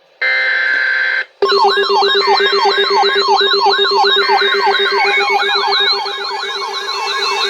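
Electronic alert siren: a short steady tone burst, then from about a second and a half in, several siren sweeps layered together. There are repeated rising yelps about three a second, a faster warble higher up, and a steady low tone underneath.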